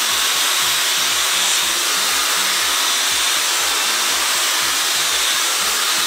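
Dyson Supersonic hair dryer with a comb attachment blowing continuously through a section of hair: an even, steady rush of air.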